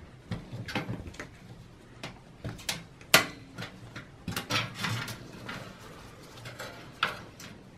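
Hands handling a desktop PC's front-panel power switch and its cable against the sheet-metal case: scattered light clicks and rattles, the sharpest about three seconds in.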